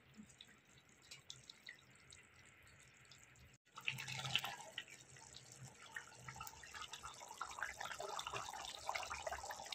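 Thin tamarind curry with dry fish simmering in a metal kadai, bubbling with wet crackles and small clicks as a steel ladle stirs and lifts it. It is very faint at first, then abruptly louder about three and a half seconds in.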